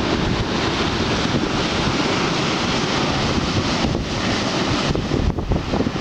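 Rough storm surf from a passing typhoon, breaking and washing over a rocky shore in a steady rushing roar, with strong wind buffeting the microphone.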